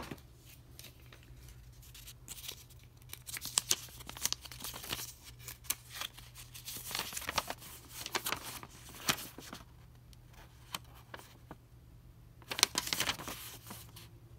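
Thin folded paper leaflet being unfolded by hand, rustling and crinkling in irregular bursts, with the loudest burst about two seconds before the end.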